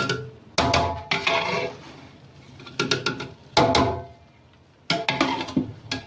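Metal ladle clanking against a steel cooking pot and serving platter as biryani is dished out, five or so separate knocks, each ringing briefly.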